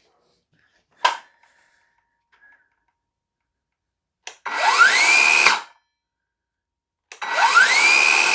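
Cordless circular saw run twice with no load: each time a motor whine climbs quickly in pitch to full speed, holds for about a second, then cuts off fast as the electric blade brake stops the blade. A sharp click comes about a second in.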